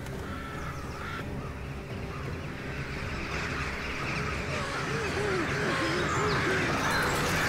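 A large flock of crows cawing in a dense, overlapping din that grows steadily louder, heard in a TV drama's soundtrack.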